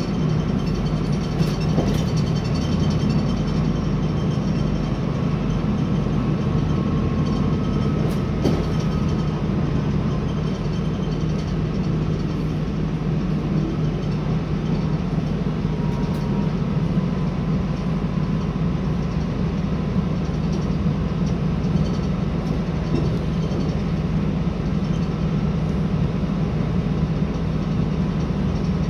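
Cabin noise inside a Northern Ireland Railways CAF 3000 class diesel multiple unit running at speed: a steady low rumble of the train in motion, with an occasional click.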